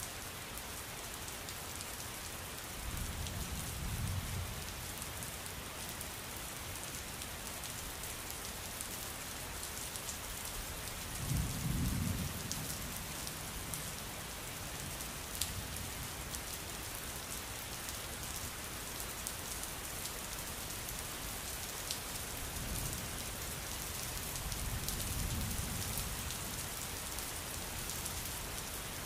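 Steady rain with low rolls of thunder three times: a few seconds in, loudest about twelve seconds in, and again near the end.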